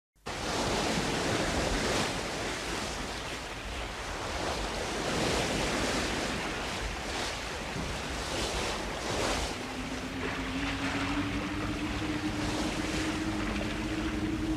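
Anime sound effects from the Dragon Ball series: a rushing noise like wind or surf that swells and ebbs every second or so, joined about two-thirds of the way in by a low hum that slowly rises in pitch.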